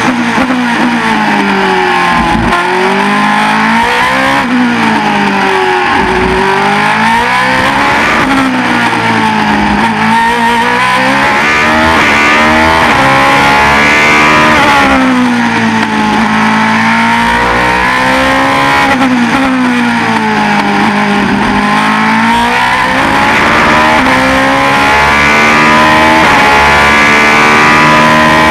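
GP2 car's Mecachrome V8 heard onboard at racing speed. Its pitch drops under braking and climbs back as it accelerates through the gears, again and again every few seconds.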